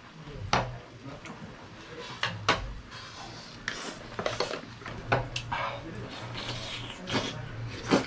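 Scattered light clicks and knocks of chopsticks against a bowl as a whole boiled chicken is pulled apart, with some soft tearing and handling noise.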